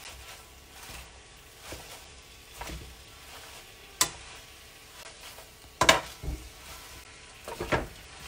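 Spinach frying in hot oil, tossed with tongs: a light sizzle under sharp clicks and knocks of the tongs against the pan, the loudest about six seconds in and a quick cluster near the end.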